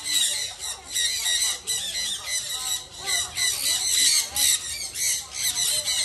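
A flock of sun conures screeching: many shrill, overlapping squawks in rapid, unbroken bursts.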